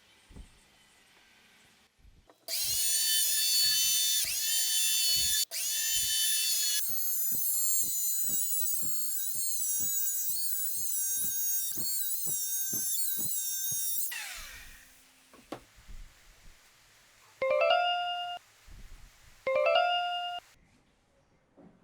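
Electric power tool motors whining at high pitch for about eleven seconds, the pitch sagging now and then as if under load and, in the later part, pulsing about twice a second. Then two short trigger bursts, each spinning up quickly, like a drill driving screws.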